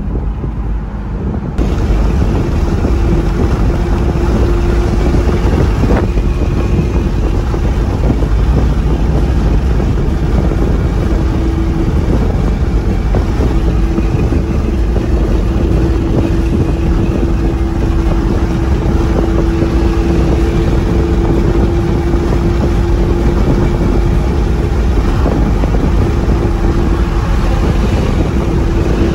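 Lamborghini Aventador's V12 engine cruising at steady highway speed, heard inside the cabin as a steady drone over road and wind noise. It gets louder about a second and a half in.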